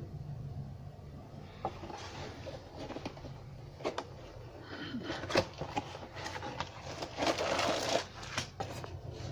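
Cardboard model-kit box being handled and opened: scattered taps and scrapes of the card, then a denser crinkling of the kit's plastic parts bag near the end.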